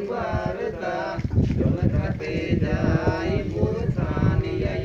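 Several men singing a Santhal Sohrai song together, a chant-like melody with long held notes.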